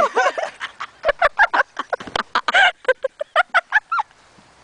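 A person making turkey-call clucks and yelps: a quick, uneven run of short pitched notes that stops shortly before the end.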